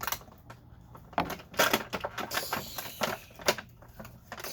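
Hard plastic toy packaging being handled: crinkling with a run of irregular sharp clicks and snaps, the loudest about a second and a half in and again near three and a half seconds, as small plastic accessories are worked loose from it.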